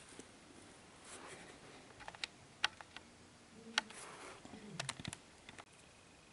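Faint sharp clicks and taps of a small plastic toy figurine being handled and set down on a tabletop, a handful of them scattered from about two seconds in.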